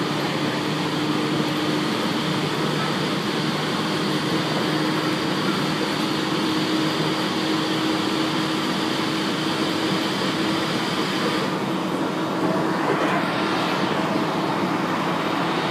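701-series electric train running at steady speed, heard from inside the carriage: continuous rolling and running noise with a steady low hum. The higher hiss dips for a moment about twelve seconds in.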